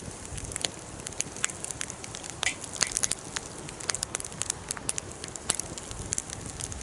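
Wood fire crackling, with many irregular sharp pops and snaps.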